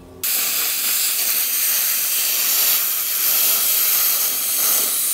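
Handheld plasma cutter torch cutting through a metal sheet: a loud, steady hiss of the arc and its air jet, starting abruptly a moment in.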